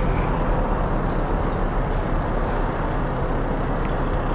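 Honda Monkey 125's single-cylinder four-stroke engine running steadily at low revs as the bike rolls slowly.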